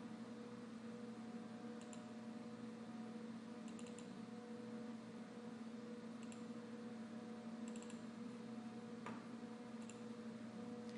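Faint computer mouse clicks every couple of seconds, some in quick double or triple runs, over a steady low hum.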